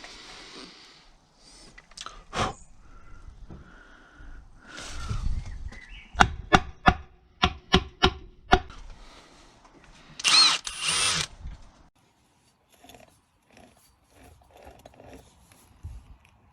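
Workshop tool sounds: scattered clicks, then a run of about seven sharp metallic knocks, then two short bursts from a power tool, with a few faint clicks after.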